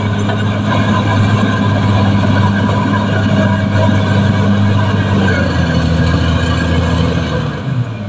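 Caterpillar D6R XL bulldozer's diesel engine running steadily as the dozer tracks along the cut, with mechanical clatter over the drone. The engine note shifts about two-thirds of the way through and drops in level near the end.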